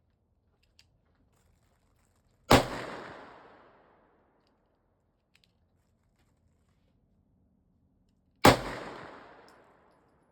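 Two handgun shots about six seconds apart, each a sharp crack followed by a fading echo.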